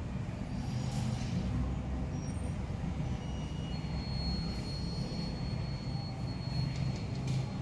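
Automatic sliding gate driven by a DEA REV 220 operator, the heavy gate rolling along its ground track with a steady low rumble, and a faint high whine in the second half.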